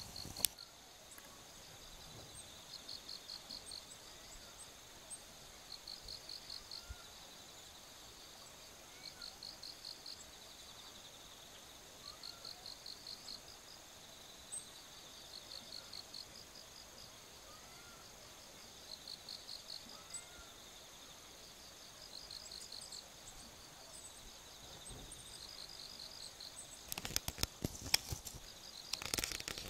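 Insects chirping in short pulsed trills, one about every two to three seconds, over a steady high-pitched hum. Near the end comes a burst of sharp crackles and knocks.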